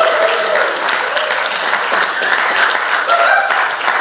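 Audience applauding with dense, steady clapping and a few cheers.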